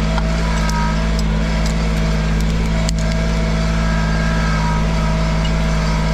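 Cub Cadet 1512 garden tractor engine running steadily as the tractor drives along, with a single sharp click about three seconds in.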